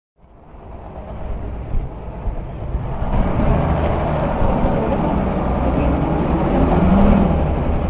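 Diesel engine of a Mercedes-Benz OF1214 city bus running, heard from inside the passenger cabin with a deep steady rumble. It rises from silence over the first couple of seconds and keeps growing slowly louder.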